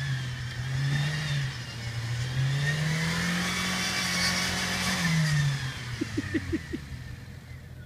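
Jeep engine revving under load as the vehicle crawls up a rutted forest slope off-road. The revs rise briefly about a second in, then climb and hold for a few seconds before dropping back about five and a half seconds in.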